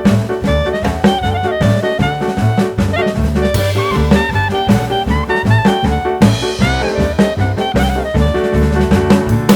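Background music: an upbeat jazz or swing piece with brass, saxophone and drum kit over a steady walking bass.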